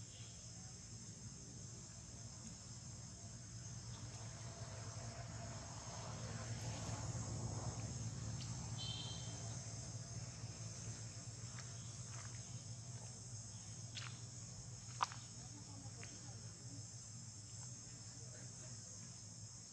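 Steady chorus of insects, an even high buzz over a low hum. A short high chirp about nine seconds in, and one sharp click about fifteen seconds in.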